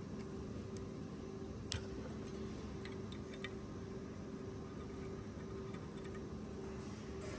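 Faint clicks and light taps of metal parts being handled as a stainless sanitary valve is opened and its internals taken out, the sharpest about two seconds in. Under them runs a low hum with a faint tone pulsing about twice a second.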